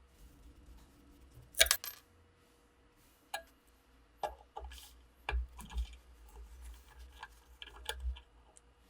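Small steel revolver parts clinking and clicking as they are handled and set down on a hard surface. The loudest is one bright ringing clink about one and a half seconds in, followed by a scattered series of lighter metal clicks and knocks.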